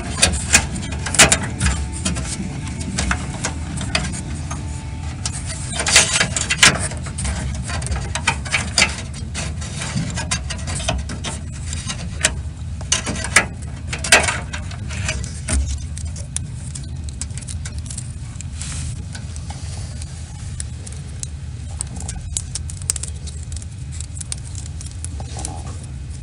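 Computer fan power cords being handled and their plastic male and female connectors pushed together, giving scattered clicks and rustling, busiest in the first half, over a steady low hum.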